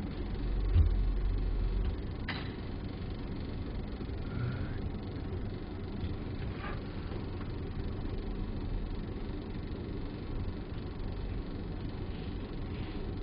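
Steady low background rumble, heavier for the first couple of seconds, with two light clicks of small electronic parts being handled with tweezers.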